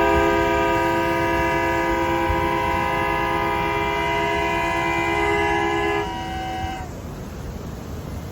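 Train air horn sounding one long blast, a steady chord of several tones held for about six seconds. Some of the tones cut off first and the rest follow a moment later, leaving a steady background rush.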